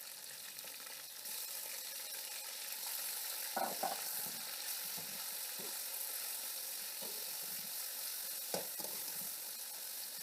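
Chicken pieces sizzling steadily as they are browned in hot oil with ginger-garlic and cumin, with a few brief scrapes of a spoon stirring them.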